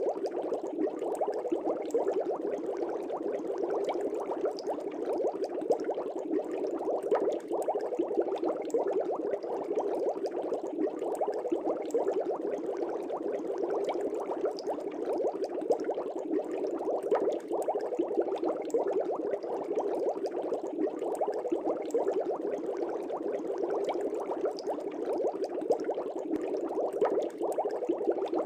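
Fish-tank air bubbles rising through aquarium water in a steady stream, a continuous dense bubbling with no break.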